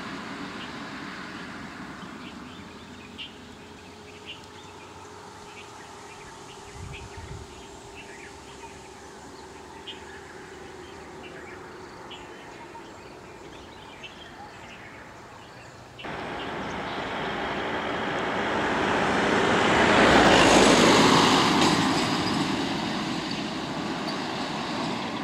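Motor vehicles driving past on a road: a car fading away at the start, then a quieter stretch with faint ticks. A heavier vehicle's engine and tyres follow after a sudden jump in level, swelling to the loudest point about two-thirds of the way in and easing off.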